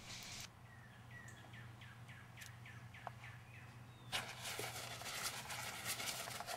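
A small bird chirping a run of short, downward-slurred notes, about three a second, faint against a steady low hum. About four seconds in, a broad hiss starts abruptly and covers the rest.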